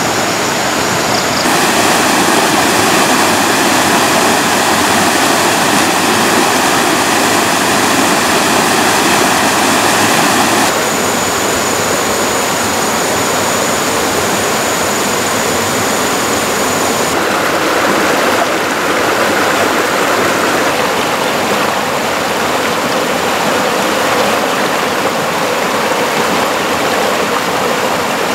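Stream water rushing steadily over rocks in a small cascade, its tone shifting abruptly a few times.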